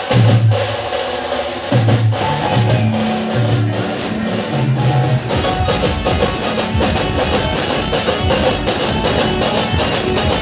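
Loud band music played through a truck-mounted speaker stack: heavy bass notes for the first few seconds, then a quick, steady percussion beat.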